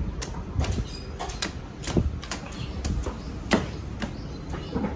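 Machete chopping into the husk of a young green coconut: quick, irregular strikes, about two or three a second.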